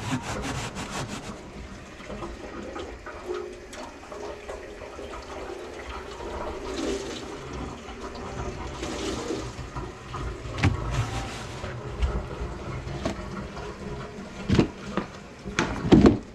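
Water running and draining through the kitchen sink drain, with a rushing hiss that swells twice midway, and scattered knocks and clatter from handling.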